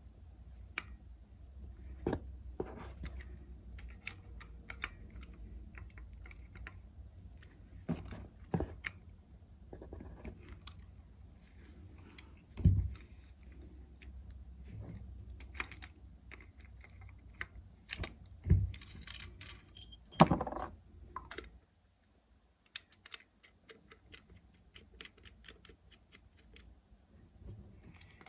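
Irregular clicks, metallic clinks and a few louder knocks of hand tools and small metal parts being handled during plumbing work, over a low rumble that stops about three-quarters of the way through.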